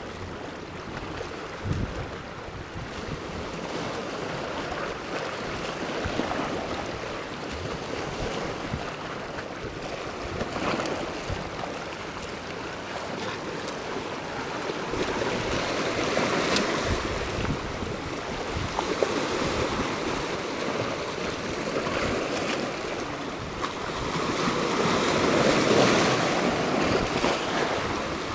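Small sea waves washing and splashing against shoreline rocks, growing louder near the end.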